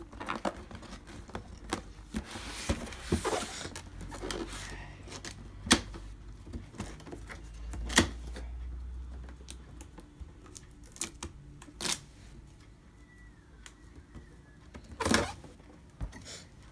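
Cardboard packaging of a Marshall Kilburn II speaker being handled and opened: sliding and scraping of the box, with scattered taps and knocks. The loudest knocks come about 6, 8 and 12 s in, and a longer scrape about 15 s in.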